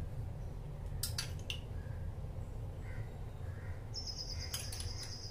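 A spatula stirring thick mango halwa in a pan, knocking against the pan in two short clusters of clicks, about a second in and again near the end, over a low steady hum. A high steady whistle-like tone is held for about a second and a half near the end.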